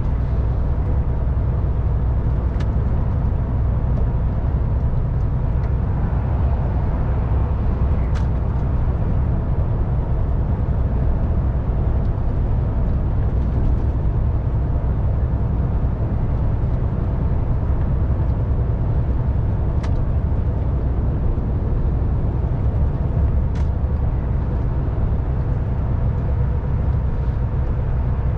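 MAN TGX truck driving at a steady speed: a constant low diesel engine drone with tyre and road noise, and a few faint clicks.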